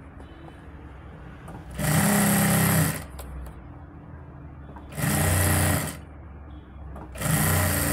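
Sewing machine running in three short bursts of about a second each, stopping between them, as it stitches the seam of a kameez collar.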